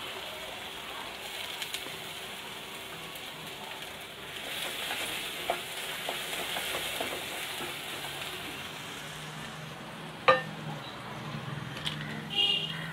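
Chopped shallots frying in sesame oil in a clay pot, with a steady sizzle as a wooden spatula stirs them, and a sharp knock about ten seconds in.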